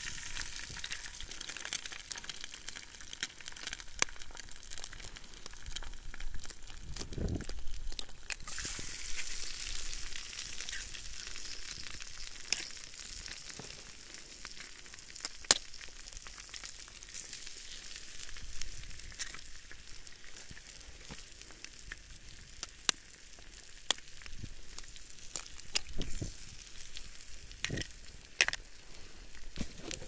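Food frying in a pan: a steady sizzle with frequent small pops and crackles. There is a dull knock about seven seconds in.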